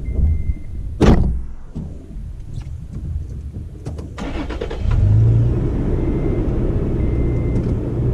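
Toyota FJ Cruiser's V6 engine running and its tyres rolling over a snowy trail, heard from a camera on the outside of the driver's door, with a sharp knock about a second in. The engine grows louder and steadier from about five seconds in.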